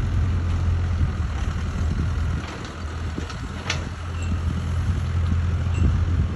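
Mini excavator's diesel engine running with a steady low hum, easing off for a second or so in the middle. There is one sharp knock just under four seconds in.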